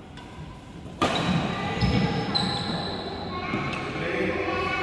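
Badminton play in an echoing indoor hall: a sharp racket strike on a shuttlecock about a second in, followed by thuds of feet on the wooden court and players' voices.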